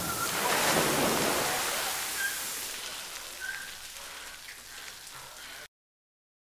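A big burst of water from a special-effects rig splashes down onto the set floor: a rushing spray that slowly dies away into patter. About three-quarters of the way through it cuts off abruptly to silence.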